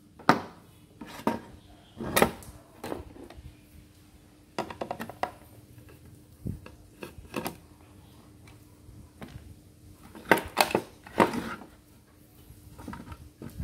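Sharp clicks and knocks of a screwdriver working a screw in the plastic housing of a Philips Diva iron while the iron is handled on a wooden bench. These are separate hard taps at irregular intervals, a few louder than the rest.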